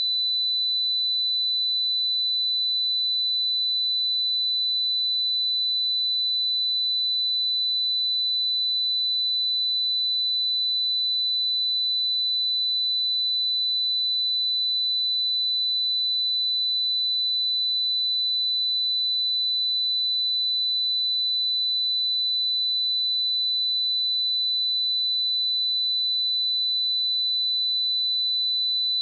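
A pure 3993 Hz sine-wave test tone: one steady, high-pitched, unwavering pitch at constant loudness.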